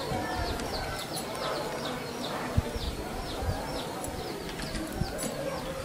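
Faint, rapid series of short high chirps, about three a second, over low background noise.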